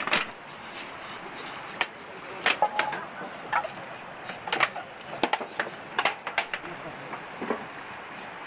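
Knives scraping the hair off a pig carcass in short, irregular strokes, over the steady rush of a river.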